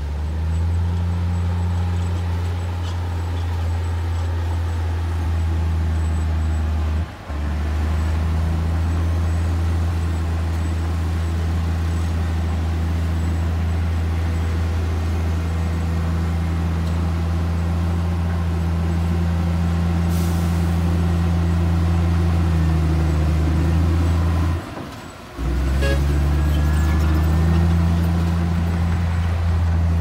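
Heavy diesel engine of earthmoving machinery running steadily with a deep drone, breaking off abruptly for a moment twice. A short high hiss about twenty seconds in.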